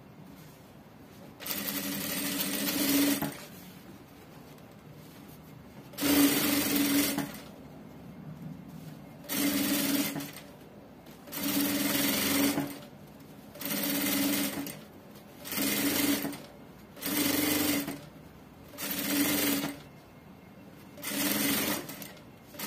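Industrial sewing machine stitching in short runs: about nine bursts of a second or two each with a steady running hum, stopping briefly between them while the fabric is repositioned.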